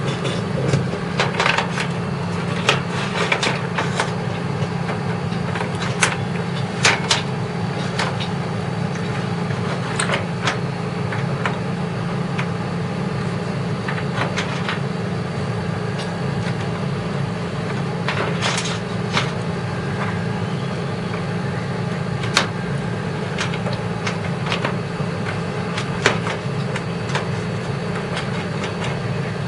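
Irregular clicks and taps of a screwdriver and metal parts as components are screwed back into a computer case, over a steady low hum.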